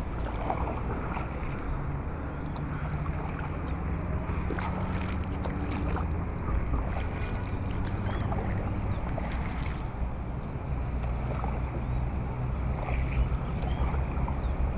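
Small wooden canoe being paddled by hand: the wooden paddle dipping and pulling through the water and water washing along the hull, steady throughout, with wind buffeting the microphone.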